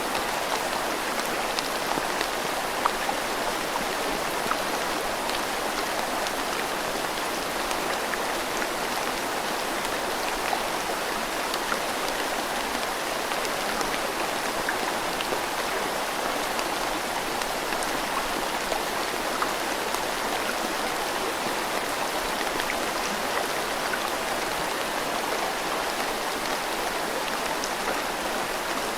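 Steady rain falling over a flowing river: an even rushing hiss of water with many small, sharp drop ticks scattered through it.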